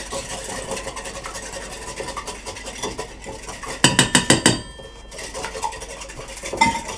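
Eggs being beaten with a small whisk in a ceramic bowl: a quick, steady clicking of metal on the bowl. About four seconds in comes a short burst of louder metal clanking against a stainless steel mixing bowl.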